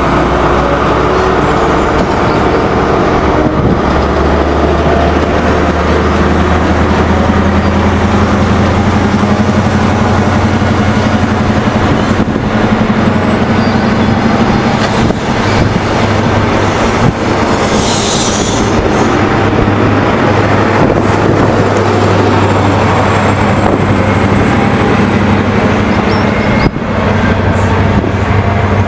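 GWR High Speed Train with Class 43 diesel power cars moving through a station: a steady engine drone over the rumble of the coach wheels on the rails. A brief high-pitched squeal comes about eighteen seconds in.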